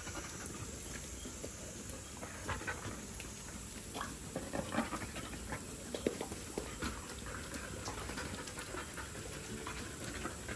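Garden hose nozzle spraying water onto wet concrete in a steady hiss, with Labrador puppies panting and snapping at the spray, making irregular splashes and clicks.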